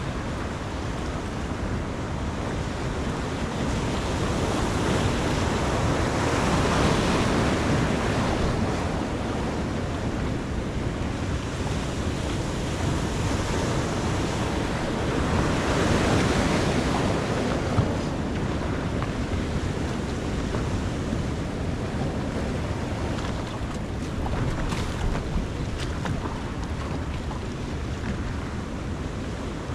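Wind buffeting the microphone over surf washing along the jetty, a steady rushing noise that swells twice.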